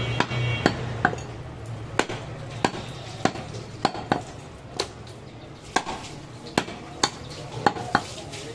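A heavy butcher's chopper chopping through goat ribs onto a wooden log chopping block: sharp, uneven chops roughly every half second to second.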